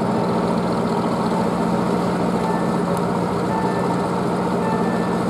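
Steady, loud drone of heavy machinery running at a shipyard quay. Short high electronic warning beeps sound a few times in the second half.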